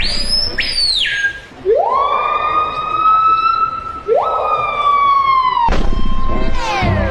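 A siren-like wail: a quick high rise and fall at the start, then two rising whoops about two and a half seconds apart, each levelling off into a held tone.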